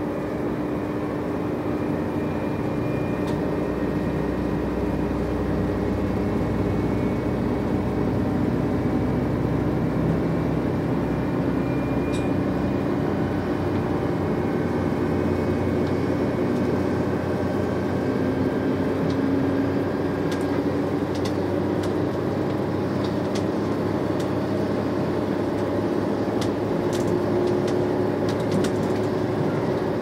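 JR Shikoku 2700 series diesel limited express heard from inside the passenger cabin as it pulls away and gathers speed. Its engines and running gear make a steady drone, with engine tones that shift and rise as it accelerates. A few light clicks come in the later part.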